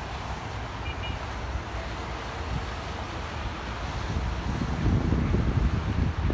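Wind buffeting the microphone as a low rumble, growing stronger and gustier about four and a half seconds in.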